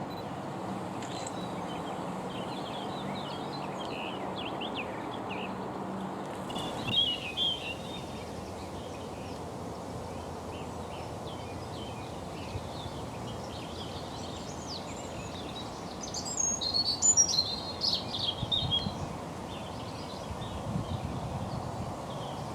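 Small birds chirping and singing over a steady background noise, with louder bursts of song about seven seconds in and again around sixteen to nineteen seconds in.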